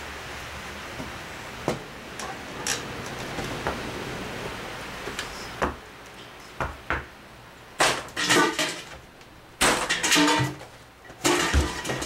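Handling noises: scattered knocks and clicks, then a few louder bouts of clanking and clattering with a brief ring in the second half, as a metal pail and its handle are carried and set about.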